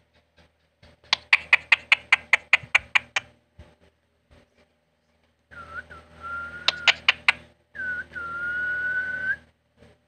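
Indian ringneck parakeet giving a quick run of about a dozen sharp chirps, then two long, steady whistles, the second the longer, each starting with a small dip in pitch.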